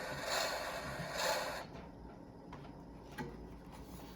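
A monster-truck engine sound effect played through a sound book's tiny speaker: a thin, noisy revving with no bass, in three swells, which stops about a second and a half in. Faint clicks follow.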